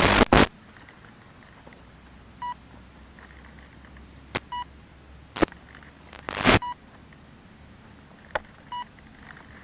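Short electronic beeps, four of them about two seconds apart, from the RC plane's onboard electronics. Loud knocks and rustles from hands handling the airframe right against the onboard camera's microphone come through, loudest at the very start and about six seconds in.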